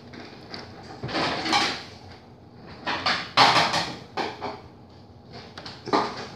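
Kitchen clatter: dishes and cupboard doors handled at a counter, in several short bursts.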